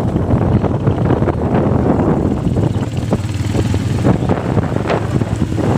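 A moving vehicle running, with wind buffeting the microphone: a steady, loud low rumble with faint scattered clicks.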